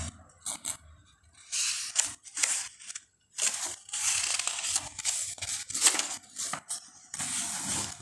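Paper rustling and crinkling in irregular bursts as the glossy pages of a picture book are handled and turned.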